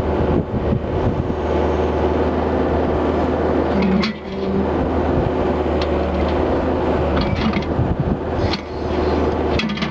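Yanmar 50 mini excavator's diesel engine running steadily under hydraulic work, with short metallic clanks and rattles about four seconds in and again in the last couple of seconds: the quick coupler rattling.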